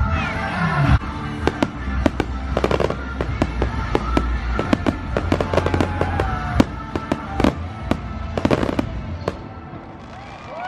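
Fireworks display: a rapid, irregular string of sharp bangs and crackles over a low rumble, with a few falling whistle-like tones. The bursts thin out near the end.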